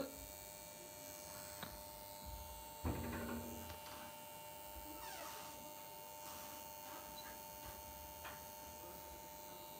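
A faint, steady electrical hum in a quiet room, with a brief soft sound about three seconds in and a few faint ticks.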